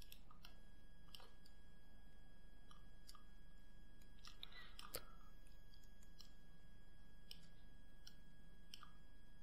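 Faint, scattered clicks of a computer mouse and keyboard, about a dozen irregular presses with the sharpest one about five seconds in, over a low steady hum and a thin steady high whine.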